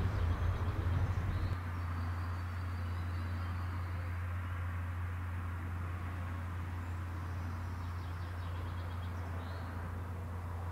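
Steady low drone of a car driving, heard from inside the cabin; for about the first second and a half it is louder and uneven before settling. A few faint high chirps sound over it.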